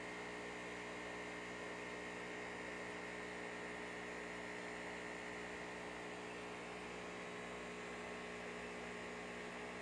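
Steady electric hum with several fixed tones and a constant hiss behind it.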